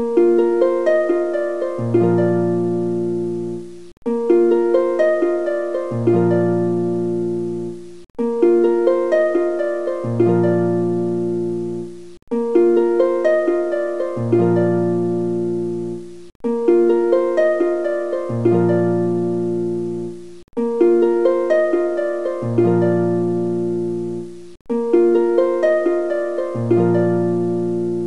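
Background music: a gentle plucked-string, harp-like melody repeating as a short loop about every four seconds, with low bass notes joining halfway through each pass and a brief dropout between passes.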